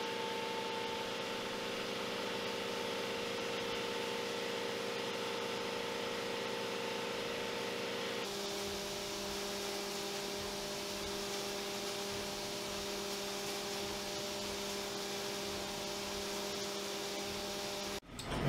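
CNC milling machine cutting 6061 aluminum with an end mill under flood coolant: a steady machine whine with several held tones over the hiss of coolant spray. About eight seconds in the tones shift to a different set, and the sound cuts off abruptly near the end.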